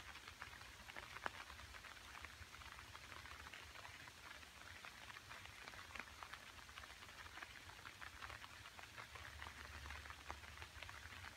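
Light rain pattering on leafy bushes, heard as a faint, dense crackle of small drops, with a low rumble underneath that swells a little near the end.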